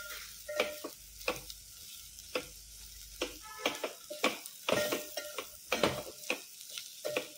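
A spatula scraping and knocking against a metal pot while stirring a dry vegetable stir-fry, with a soft sizzle underneath. The strokes come irregularly, about one or two a second, and some leave the pot ringing briefly.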